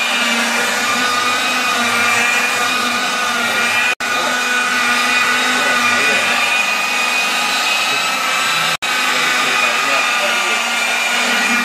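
Electric rotary polisher with a foam pad running steadily on a car's painted roof: a loud, even motor whine with several high tones, breaking off for an instant twice.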